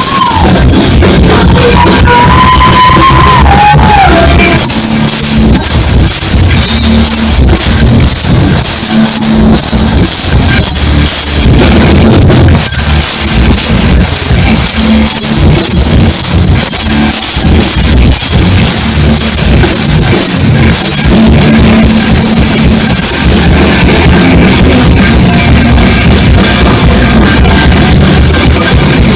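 A rock band playing live at full volume: electric guitars over a drum kit, without a break.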